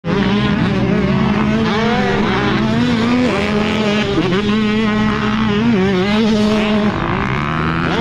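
Motocross dirt bike engine revving hard, its pitch climbing and dropping again and again as the throttle is worked.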